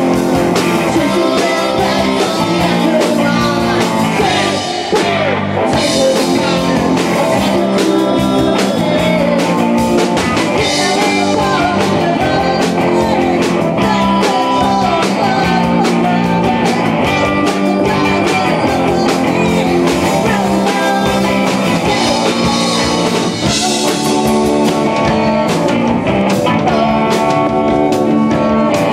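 A rock band playing live, electric guitar over a drum kit, loud and steady.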